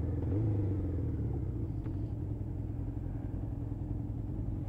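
Motorcycle engine running at low, steady revs under a rumble of wind and road noise on a helmet-mounted camera.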